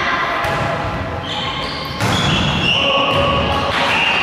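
Volleyball rally in an echoing sports hall: the ball being struck and bouncing, with voices and several high, held notes over the top.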